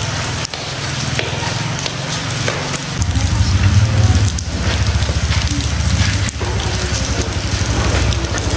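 Rain on a corrugated metal roof: a loud, steady hiss with fine crackle and a low rumble that grows louder about three seconds in.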